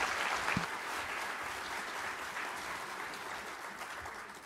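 Audience applauding, the clapping slowly tapering off near the end.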